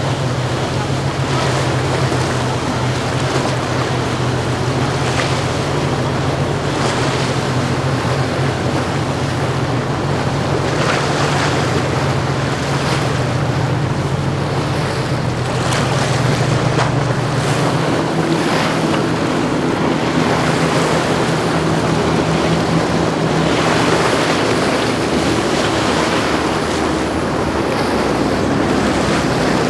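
Ferretti 780 motor yacht's engines running at cruising speed, a steady low drone over rushing hull wash, with wind on the microphone. About 18 seconds in it gives way to a Pershing 50 express yacht passing at speed, its engines a higher-pitched hum over the hiss of heavy spray.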